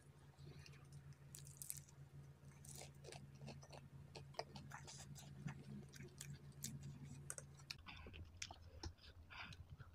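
Faint close-up chewing of spicy instant noodles, with scattered short wet clicks of mouth sounds and wooden fork and spoon, over a low steady hum.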